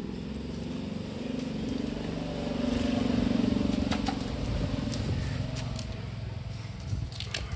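A motor vehicle engine passing by, growing louder to a peak about three seconds in and then fading away, with a few light clicks near the end.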